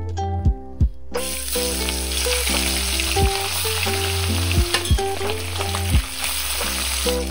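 Whole parshe fish sizzling loudly as they fry in hot oil in a kadai; the sizzle starts suddenly about a second in, when the fish go into the oil, and continues steadily. Background music with plucked notes plays underneath.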